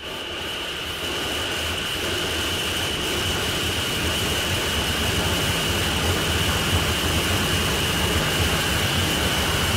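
Noisy droning intro to a metal track: a steady rushing roar with a low rumble and a held high whine, slowly swelling in loudness.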